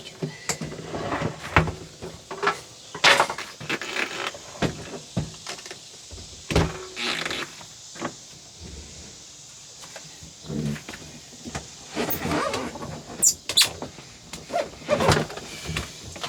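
A small refrigerator being pushed and worked into a tight cabinet opening: irregular knocks, bumps and scrapes as it rubs against the wooden framing, with a few short high squeaks near the end.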